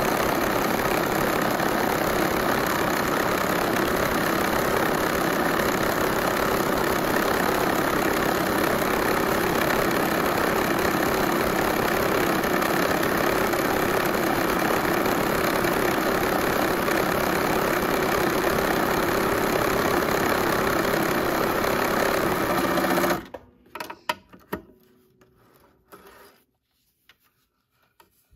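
Bernina electric sewing machine running steadily at speed, stitching along a strip of fabric. It stops abruptly near the end, leaving only faint clicks and handling sounds.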